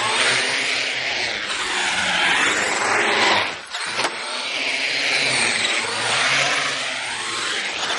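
Traxxas Summit electric RC monster truck driving hard around a concrete skate bowl: its motor and drivetrain whine rises and falls in pitch as it speeds up and slows down on the walls, with tyre noise on the concrete. About three and a half seconds in the sound drops briefly, then a sharp knock.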